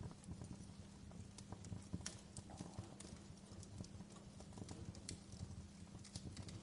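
Wood fire crackling: irregular sharp pops and snaps over a low steady hum.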